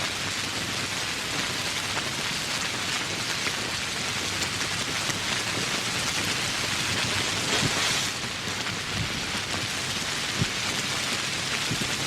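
Steady heavy rainfall, an even hiss with individual drops ticking. It swells briefly about two thirds of the way through, and one sharper drop lands near the end.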